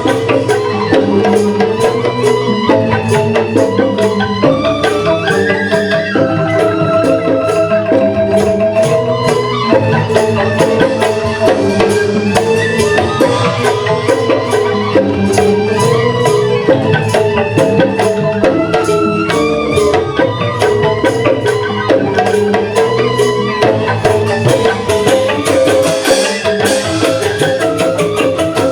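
Balinese joged bumbung gamelan playing: bamboo xylophones strike fast, dense patterns over percussion, continuously.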